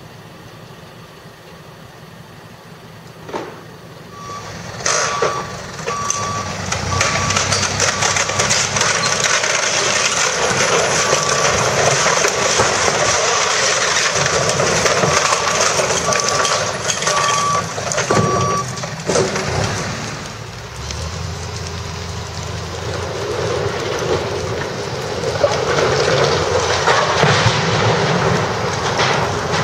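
Demolition machinery tearing out a building's wooden wall: a backup alarm beeps steadily for about fifteen seconds over the loud crash and crackle of debris. After the beeping stops, a heavy machine's engine drones low under continuing clatter.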